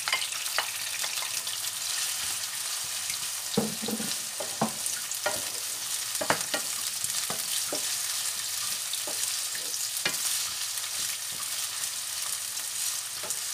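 Diced onions and green peppers sizzling in oil in a frying pan, stirred with a wooden spoon that knocks against the pan at irregular intervals.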